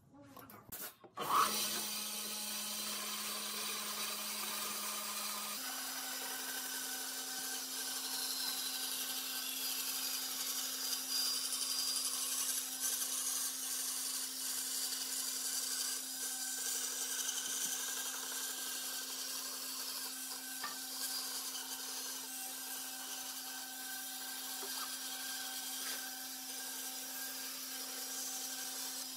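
Band saw running, its blade cutting through a softwood board with a steady hiss over the constant hum of the motor. The sound starts suddenly about a second in.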